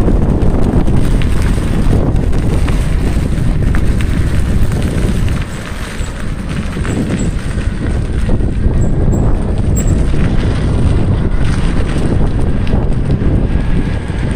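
Wind buffeting the phone microphone while riding a Wowgo AT2 electric skateboard at speed, over the rumble of its air-filled all-terrain tyres on the asphalt. The sound eases briefly about five seconds in.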